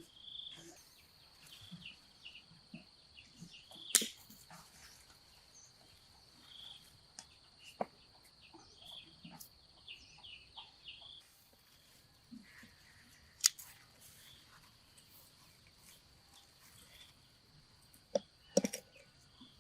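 Outdoor rural ambience: a steady high insect drone with short repeated chirps, and scattered clicks and knocks. The loudest knock comes about four seconds in, and a cluster comes near the end.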